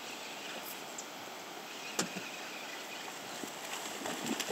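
Steady rush of river water, with one sharp click about two seconds in. Near the end, a hooked coho salmon splashes at the surface beside the raft.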